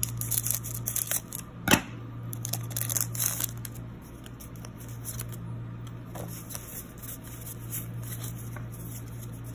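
Scissors snipping open a foil Pokémon booster pack, crinkling the foil, with one sharp snip about a second and a half in. After that, softer clicks as the trading cards are slid out and flipped through by hand.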